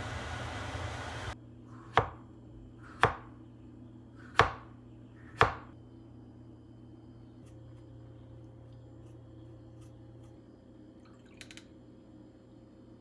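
Four sharp knocks of a chef's knife cutting avocado down onto a wooden cutting board, about a second apart. A steady hiss stops suddenly about a second in, before the knocks.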